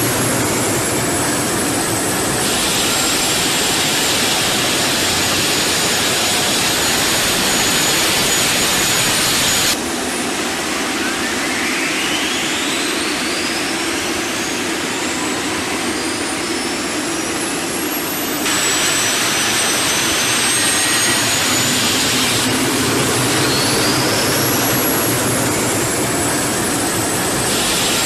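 Helicopter turboshaft engines running on a ground test, a loud steady turbine whine and rush. A high whine rises steadily over several seconds as the engines spool up. The sound changes abruptly twice, about ten and eighteen seconds in.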